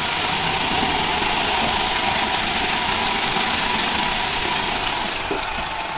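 Roomba robot vacuum running: a steady motor whir with a constant tone.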